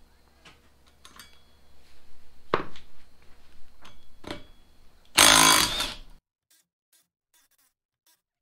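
A few metal clinks and knocks from hand tools on the rear wheel's sprocket, then a cordless impact wrench runs in one loud burst of about a second, loosening a nut on the old rear sprocket, and stops abruptly.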